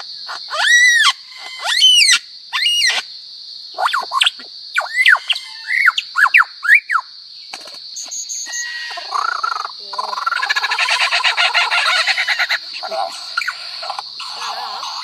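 A bird giving loud arching whistled calls, then a dense rapid-fire rattle of pulses: the 'machine gun' sound. A steady high insect-like buzz runs underneath.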